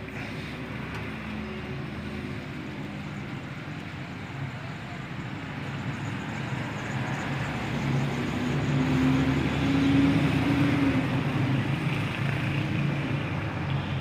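A motor vehicle's engine running in the background, growing louder toward about ten seconds in and then easing off slightly.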